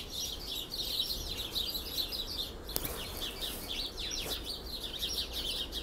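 A group of small birds chirping, with many short, high chirps overlapping in quick succession. A single sharp click sounds about halfway through.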